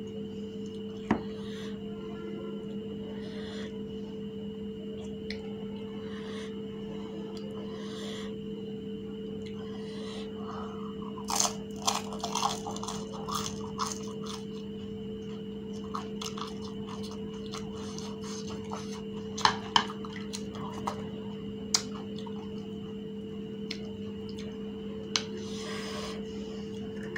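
Crisp fried fuchka (pani puri) shells crunching as they are bitten and chewed, in a burst of crunches about eleven seconds in and a few single sharp cracks later. A steady hum runs underneath.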